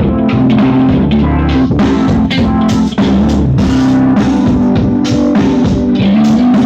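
Music with guitar and drums played loud through dual woofers driven by a 300-watt 5200 mono amplifier board for a sound test, with heavy bass.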